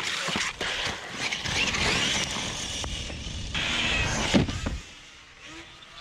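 Traxxas Sledge RC monster truck on 8S power driving hard, its brushless motor whining over the tyre noise. There is a sharp knock about four and a half seconds in, and after it the truck's sound drops much quieter.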